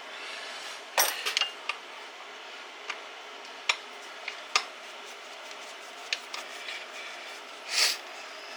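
Metal hand tools and small parts clinking and clicking against each other and the bench during disassembly, a dozen or so scattered sharp clinks, the loudest about a second in and near the end.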